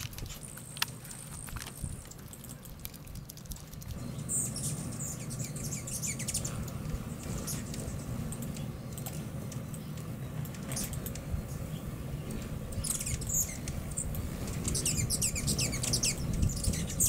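A small dog licking from a bowl, a few soft clicks, then hummingbirds at the feeders giving short, high twittering chirps in scattered clusters over a steady low background hum.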